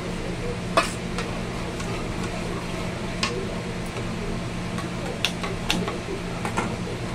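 Metal spatula stirring yogurt into a thick spice paste in a metal kadai, with scattered clinks and scrapes of the spatula against the pan, the sharpest about a second in. A steady low hum runs underneath.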